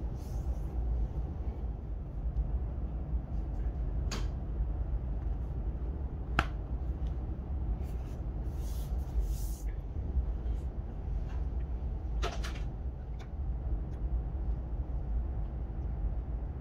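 Unboxing handling noises: a few sharp clicks and a brief rustle over a steady low rumble.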